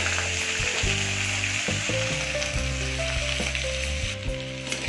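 Chopped onions, green chillies and curry leaves sizzling steadily in hot oil in a pressure cooker.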